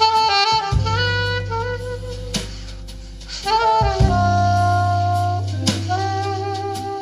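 Instrumental jazz with a sustained wind-instrument lead melody over deep held bass notes and occasional drum hits, played back through a Panasonic SU-D5500 amplifier and Pioneer S-Z82V three-way speakers. The music dips briefly a little past the middle, then comes back fuller.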